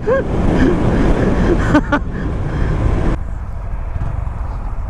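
Honda Grom 125 cc single-cylinder engine running under way, mixed with wind rushing over the microphone. About three seconds in the higher hiss drops away, leaving the lower rumble.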